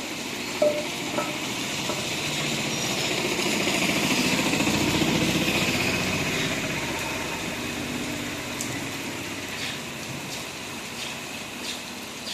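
A motor vehicle passing on a street during light drizzle: its engine hum and hiss build to a peak about five seconds in, then fade away.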